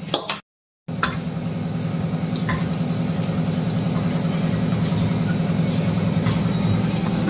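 A steady low mechanical hum, slowly getting louder, which drops out for about half a second near the start. A faint knock comes about two and a half seconds in.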